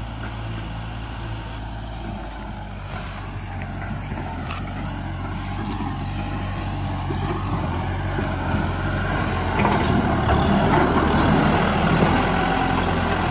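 Kubota M6040 tractor's four-cylinder diesel engine running, growing steadily louder as the tractor comes near and loudest from about ten seconds in.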